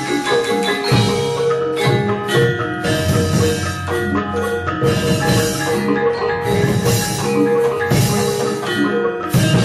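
Javanese gamelan playing: bronze metallophones and gongs ringing in sustained tones, with frequent sharp percussive strikes.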